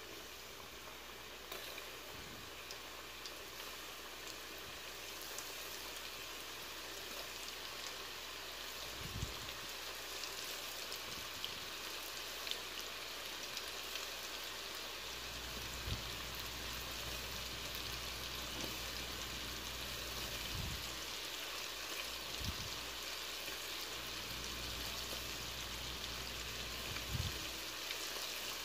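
Hot oil sizzling in a wok as flour-coated chicken pieces deep-fry: a steady hiss with scattered crackles and pops, growing a little louder over the first several seconds.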